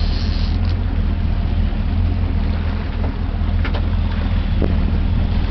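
Boat engine running steadily, a constant low hum under wind and water noise, with a couple of faint clicks about midway.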